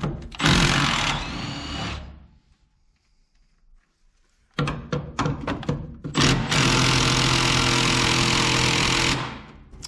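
A handheld power tool running on the fuel-tank mounting bolts. It runs for about two seconds near the start, stops, and after a few clicks runs steadily again for about three seconds in the second half.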